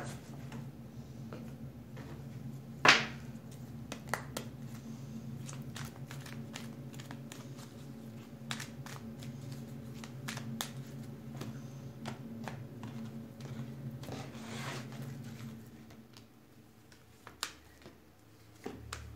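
Tarot cards being shuffled and handled by hand: a run of light clicks and taps, with one sharp snap about three seconds in, and the cards slid out across a wooden table near the end. A steady low hum runs underneath and stops a few seconds before the end.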